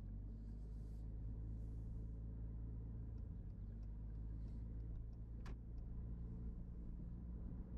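Low steady rumble of a car's engine and tyres heard from inside the cabin while driving, with a few faint ticks and one sharper click about five and a half seconds in.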